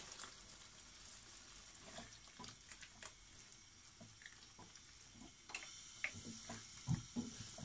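Chili chicken gravy with cornflour slurry bubbling quietly in a pan, with scattered light clicks and scrapes of a spatula stirring it, getting busier near the end.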